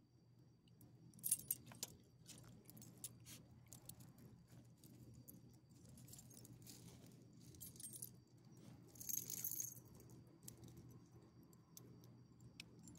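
Metal tags and leash clip on a dog's collar jingling in short bursts as the dog shifts and moves its head, loudest about a second in and again around nine seconds in, over a faint steady low hum.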